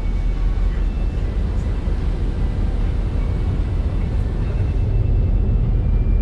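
Wind buffeting the microphone on the open deck of a moving ferry: a steady low rumble that flutters quickly.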